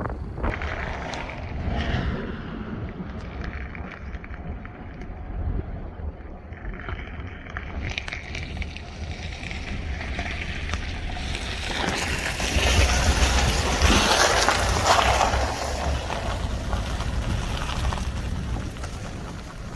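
Inside a moving vehicle in a severe thunderstorm: steady road and engine rumble with wind, and rain and hail hitting the car in scattered ticks that build into a loud, dense pelting about twelve seconds in.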